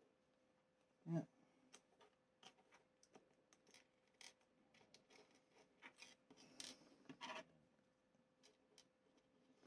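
Faint handling noises from plastic model-kit parts: light scrapes, rustles and small clicks, with one dull knock about a second in.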